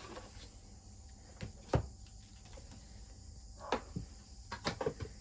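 A few light clicks and knocks from handling a washing machine's detergent drawer and powder scoop, the sharpest about two seconds in and several more near the end.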